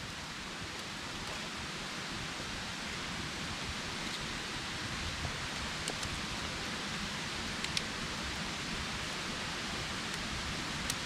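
Steady hiss of light rain, with a few faint clicks near the middle and end as split bamboo is handled.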